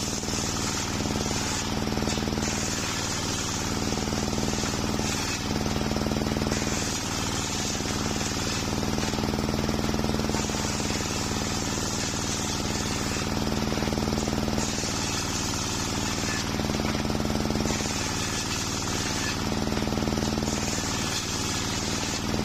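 Homemade table circular saw running continuously, its blade ripping planks of waru (sea hibiscus) wood. The high cutting noise comes and goes every few seconds as boards are fed through, over a steady hum from the saw's drive.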